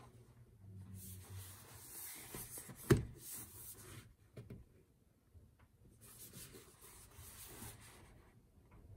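Hands rubbing and sliding over a large cardboard box as it is turned over, with one sharp knock about three seconds in.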